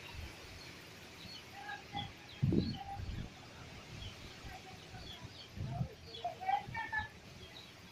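Cyclone rain falling steadily, with wind gusting against the microphone about two and a half seconds in and again near six seconds. Birds call in short, scattered notes throughout.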